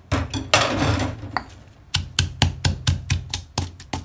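Pestle pounding garlic, black peppercorns and coriander root into a stir-fry paste in a mortar: a noisy stretch near the start, then rapid even strikes, about four a second, from about two seconds in.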